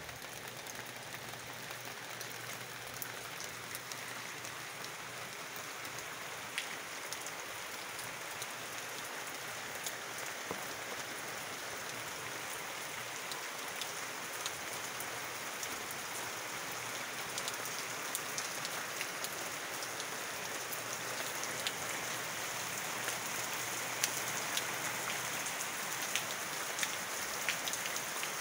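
Steady rain falling, an even hiss dotted with sharp taps of individual drops striking close by, growing a little louder toward the end.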